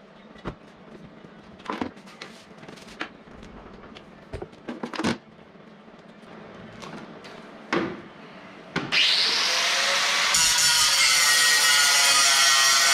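A few handling knocks and clicks, then a handheld power tool starts up about nine seconds in: its whine rises and settles into a loud, steady running. About a second later the sound turns harsher as the tool works on the aluminium frame's crossbar.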